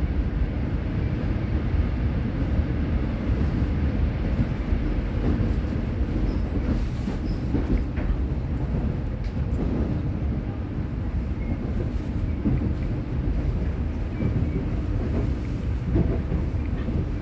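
Korail Line 4 electric train with a Toshiba GTO VVVF drive running at speed: a steady low rumble of wheels on rails, with a few faint clicks.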